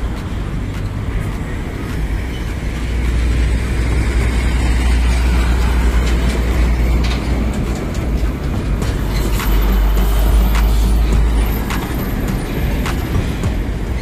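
Semi-trailer trucks and a car passing close by, a heavy deep rumble of engines and tyres that swells a few seconds in and eases off near the end, with scattered sharp clicks and rattles.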